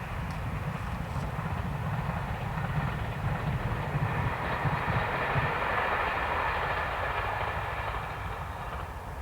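JR Hokkaido 261 series diesel express train passing at speed, its rumble and rail noise swelling to a peak about five to six seconds in, then dropping away near the end.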